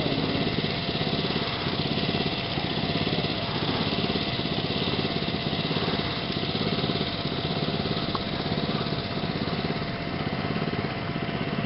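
A small engine running steadily, an even drone that does not change.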